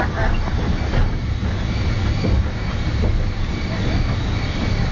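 Railway carriage running along the track, heard from on board: a steady low rumble of wheels on rails.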